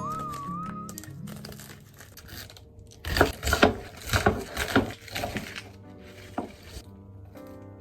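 Packaging being crinkled and torn open in a run of loud, sharp crackles lasting a couple of seconds, about three seconds in, over soft background music.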